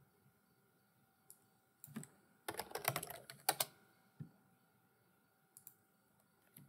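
Typing on a computer keyboard: a quick run of key clicks lasting about a second, a few seconds in, with a few single clicks before and after.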